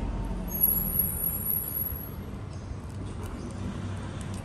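Low rumble of a motor vehicle going past, fading after about two seconds, with a thin high squeal for a second or so near the start.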